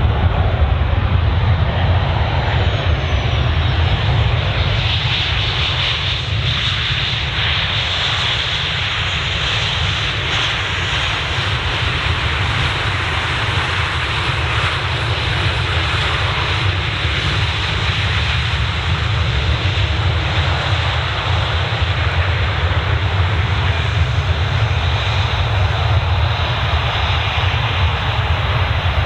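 Jet engine noise from a Boeing 737-900ER's CFM56-7B turbofans as the airliner comes in to land: a steady, loud roar with a deep rumble underneath, turning brighter and hissier for several seconds between about five and eleven seconds in.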